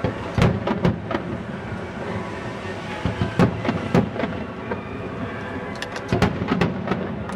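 Distant aerial fireworks shells bursting in bangs with a rumbling, thunder-like echo. Three come in quick succession about half a second in, two more near three and a half and four seconds, and another quick cluster of three around six seconds in.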